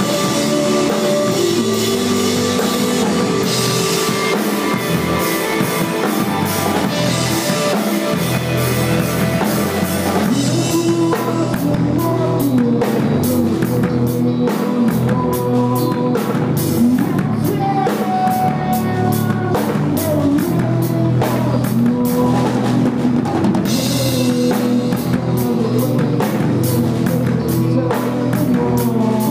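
Indie rock band playing live: drum kit and electric guitar, picked up by an iPad's microphone in a bare warehouse. The cymbal wash thins out about ten seconds in, leaving a sparser beat, and comes back near the end.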